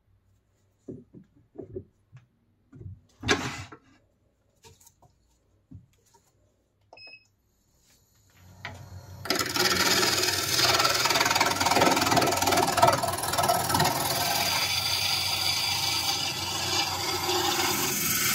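A few scattered knocks and clunks of a wooden blank being handled and fitted on a wood lathe. Then, from about eight and a half seconds in, the Record Power Coronet Herald lathe spins up and a turning gouge cuts into the spinning wood with a steady, rough scraping noise.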